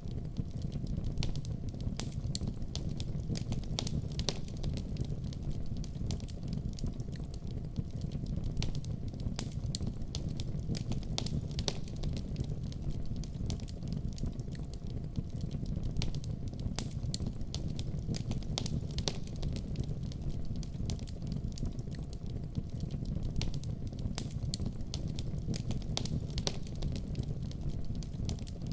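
Wood fire burning in a fireplace: a steady low rumble of the flames with frequent small crackles and pops scattered throughout.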